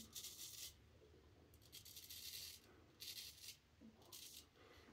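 Filly14 Tridur straight razor scraping through lather and two days of stubble in four short, faint strokes.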